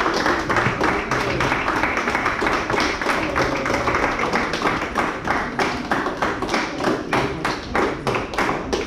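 A group applauding that settles into steady rhythmic clapping, about four claps a second.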